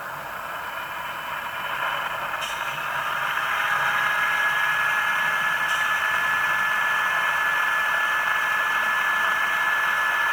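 HO scale GE Tier 4 ET44 model locomotive's sound decoder playing its dynamic brake sound through the model's small speaker: a rushing blower noise that swells over the first few seconds, then holds steady with a thin high whine.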